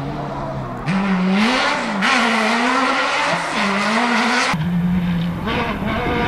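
Off-road rally buggy's engine revving hard, its pitch rising and dipping as it shifts, with a loud hiss of tyres scrabbling on gravel. About four and a half seconds in the sound changes abruptly to the engine at a steadier pitch.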